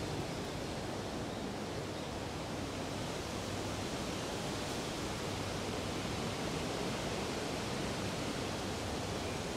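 Steady, even background hiss with a faint low hum underneath; no distinct sound stands out.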